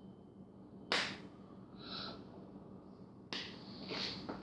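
Two sharp cracks, about two and a half seconds apart, as a hollow chocolate surprise egg is broken open.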